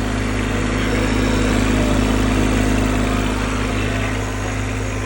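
Diesel engine of a Cat 300-series mini excavator running steadily just after a restart following a fuel filter change, having caught after two cranks.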